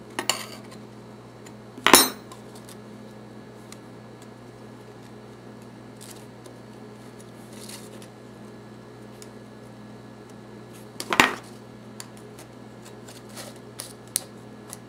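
Table knife blade scraping and clinking against the wire hardware-cloth pot stand and its aluminium foil tabs as the tabs are bent in around the bottom wire. The scrapes come in a few short bursts, the loudest about two seconds in and again about eleven seconds in, with light clicks near the end.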